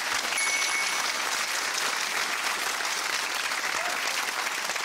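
Studio audience applauding steadily after a correct answer.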